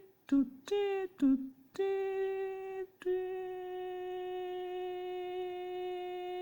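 A voice humming a few short notes, then one long held note from about three seconds in.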